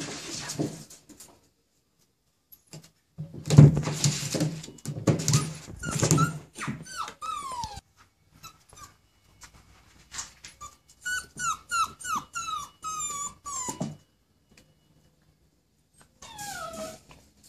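Puppies growling and yapping at play, then a puppy whining: a run of short, high whimpers that each fall in pitch, with one more near the end.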